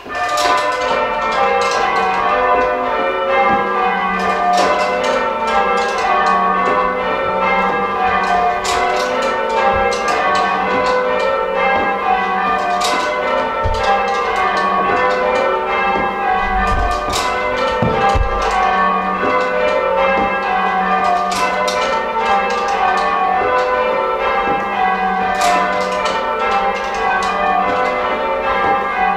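Church tower bells being change-rung by a band pulling their ropes, a continuous run of overlapping bell strokes in steady succession.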